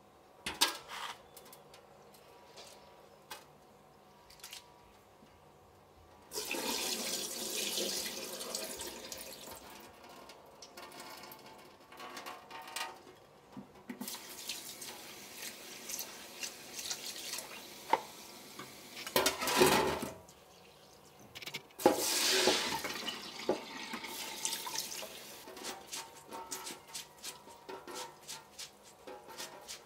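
Kitchen tap running into a glass bowl of soaked urad dal in a stainless steel sink, in several stretches, as the beans are rinsed and drained. A few sharp knocks and clinks from the bowl and a metal colander are handled along with it.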